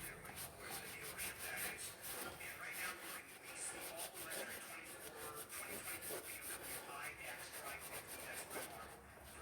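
Quiet, quick rubbing and scrubbing strokes, a few to the second, as of grime being cleaned off the lathe.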